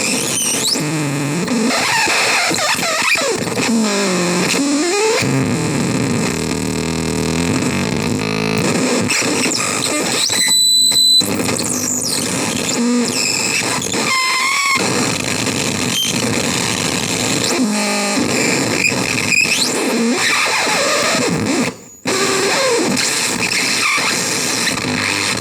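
CMOS-based harsh noise synth producing dense, loud distorted noise laced with sweeping, squealing pitches. About halfway through, a steady high whistle sounds for about a second, and near the end the sound briefly drops out.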